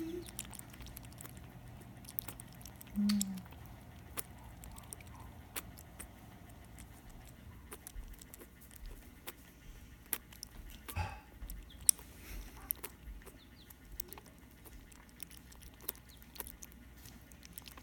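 Baby rabbit suckling milk from a feeding syringe: faint, irregular small wet clicks and smacks. A brief low hum comes about three seconds in, and a single sharp click near the middle is the loudest sound.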